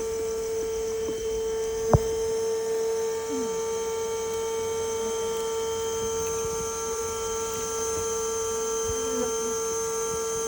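A steady, unbroken hum with one strong, fixed pitch and several fixed overtones, like a running motor or electrical hum. A single sharp click comes about two seconds in.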